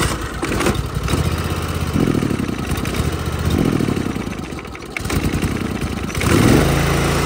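Pressure washer's gas engine running unevenly, its level rising and dipping, then settling into a steadier run near the end. It is running again after a fuel line pinched under the machine was freed.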